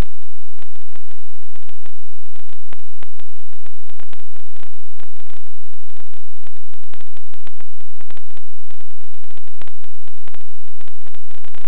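Loud, steady static hiss with frequent irregular crackling clicks: the empty audio channel of an analog FPV video receiver.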